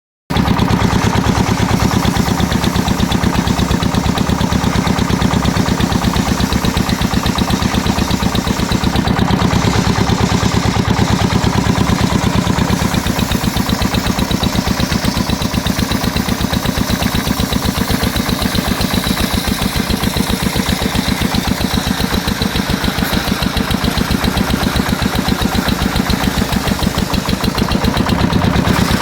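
Stihl two-stroke chainsaw engine running steadily, a fast, even buzz with no revving up or down.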